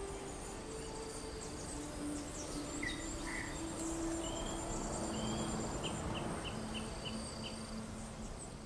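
Insects chirping steadily in high, thin tones, with a quick run of short chirps near the end.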